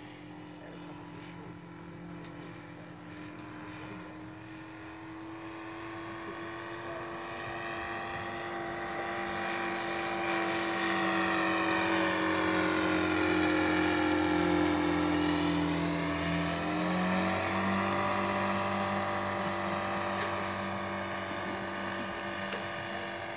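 Engine and propeller of a radio-controlled Stearman biplane running steadily in flight, a single buzzing note that grows louder for about fourteen seconds as the plane comes closer. A little later it drops in pitch as the plane passes, then fades slightly.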